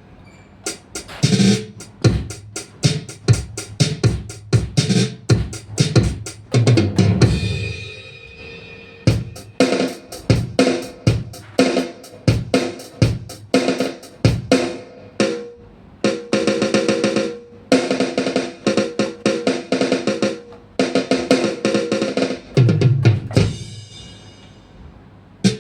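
Ddrum DDA50 electronic drum kit being played in a sound test: rapid bass drum, snare and tom hits with fills and rolls. Stretches of pitched tom-like notes are played in the middle, and there are brief pauses partway through and near the end.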